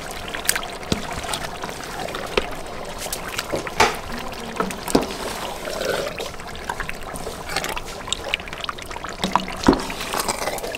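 Long wooden spoon stirring raw chicken pieces through a wet curry sauce in a large metal pot: sloshing and squelching, with scattered knocks of the spoon against the pot.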